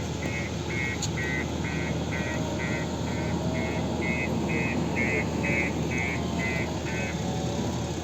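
Heavy vehicle's reversing alarm beeping about twice a second and stopping near the end, over the steady running of its engine.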